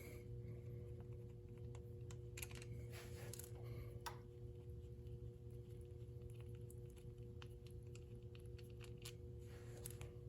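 Faint, scattered small clicks and light metal taps as the oil filter cover bolts on a Lifan KPR 200 engine are backed out and removed, over a steady low hum.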